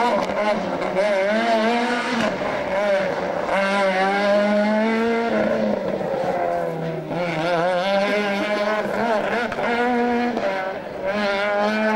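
Rally car engine revving hard through a run of bends, its pitch climbing and dropping again and again as the driver accelerates, changes gear and lifts.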